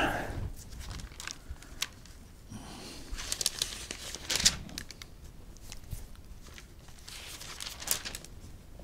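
Thin pages of a Bible being leafed through and rustling, in two busier spells, the first a few seconds in and the second near the end. A short breath comes right at the start.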